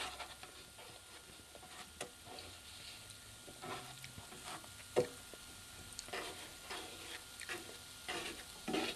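Mushroom-stem and wheat-gluten pieces sizzling faintly in a nonstick frying pan, with scattered scrapes and taps of a wooden spatula pushing and turning them, the sharpest about five seconds in.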